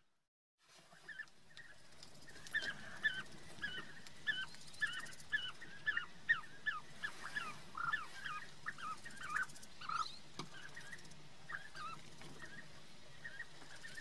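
Bee-eaters calling: many short, rolling, pitched calls repeated several times a second, several birds overlapping. The calls start a couple of seconds in after a brief dropout, and thin out over the last few seconds.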